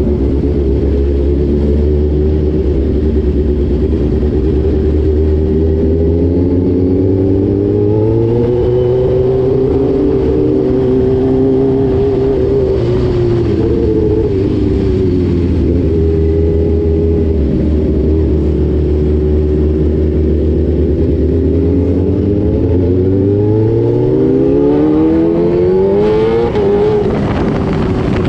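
Motorcycle engine and exhaust under way, the note rising and falling with the throttle, then climbing steadily in pitch a few seconds before the end as it accelerates.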